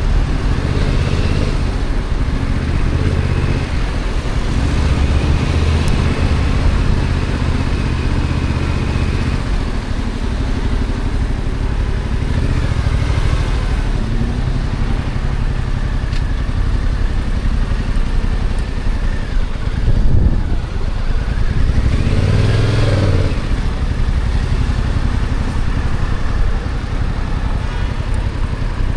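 Stock Yamaha XSR700's 689 cc parallel-twin engine running on the move, its note rising and falling with the throttle, with one climb and drop about two thirds of the way through.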